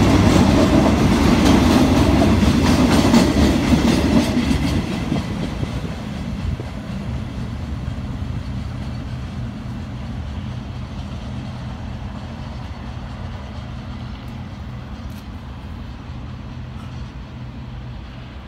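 State Railway of Thailand freight train's covered wagons rolling past close by, loud for the first few seconds. About five seconds in the end of the train goes by and the sound dies down steadily as it moves off.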